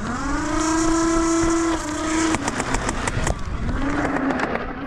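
A motorized foam-dart blaster spinning up, with a whine that rises quickly and then holds steady. About halfway through comes a rapid string of sharp clicks as darts are fired, and a shorter rev near the end.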